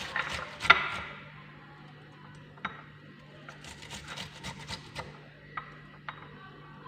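Red onion being grated by hand on a grater: a run of short rasping strokes, with a sharp knock just under a second in.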